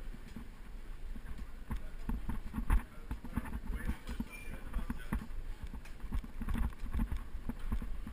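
Bicycle-mounted GoPro rattling and knocking irregularly over bumps in the road while riding, over low wind rumble on the microphone; the sharpest knock comes a little under three seconds in.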